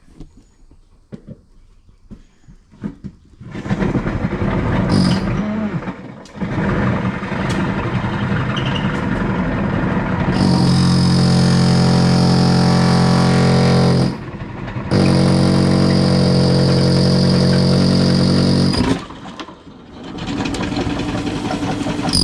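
Electric power tool running: uneven at first, then two steady runs of several seconds at constant speed with a short break between, and another burst near the end.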